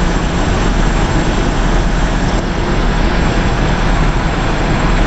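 Heavy construction machine's diesel engine running steadily, a loud, even noise with a strong low end.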